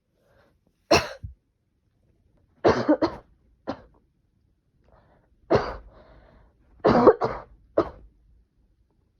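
A person with a cold coughing in short fits: single coughs and quick runs of two or three, about six bursts spread across several seconds.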